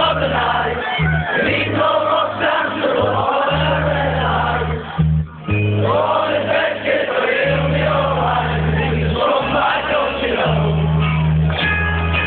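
Indie rock band playing live, with singing over a steady bass line; the music drops out for a moment about five seconds in.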